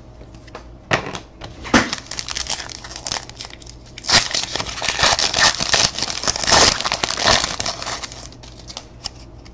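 Wrapper of a Panini Certified football card pack crinkling and tearing as it is ripped open by hand. It makes a dense run of crackles that starts about a second in and is heaviest in the second half.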